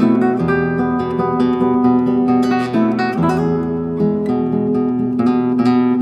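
Acoustic guitar music: a stream of plucked notes over held bass notes that change every few seconds.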